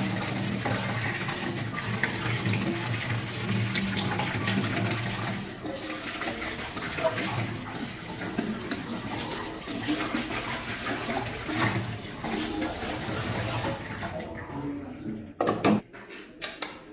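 Tap water running into a stainless-steel sink while a steel bowl is rinsed under it. The water stops near the end, followed by a few sharp knocks.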